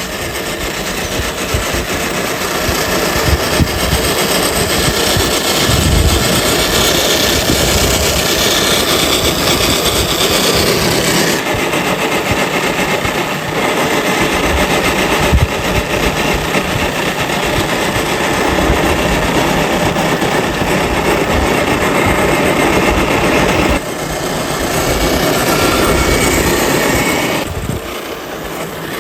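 Small electric motor and gearbox of an RC scale crawler running steadily as it drives off-road. The sound changes abruptly several times.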